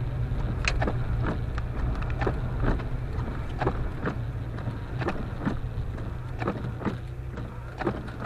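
Car driving, heard from inside the cabin: a steady low engine and road rumble with scattered sharp ticks.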